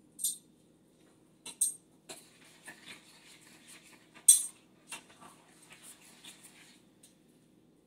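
A utensil scraping and clinking against a metal pot while stirring bread stuffing: scattered light clicks and scrapes, the sharpest about four seconds in.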